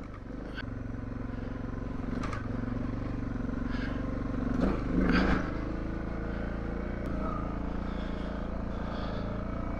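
Suzuki DR650's single-cylinder four-stroke engine running steadily under load on a rocky, sandy trail climb, getting a little louder over the first few seconds. A few short knocks and clatters break in, the loudest about five seconds in.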